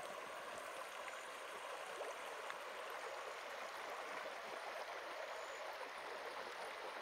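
Steady running water of a creek flowing, an even rushing noise with a few faint clicks over it.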